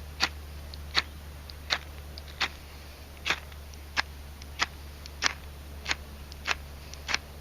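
A fire-starting striker scraped hard and fast, eleven sharp strokes about one every 0.7 seconds, throwing sparks onto fine fatwood shavings to light them.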